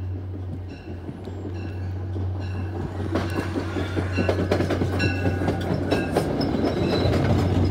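MBTA commuter rail train pulling in and passing close by: a bell rings about twice a second, then the wheels clatter louder over the rails from about three seconds in, and a high wheel squeal starts near the end.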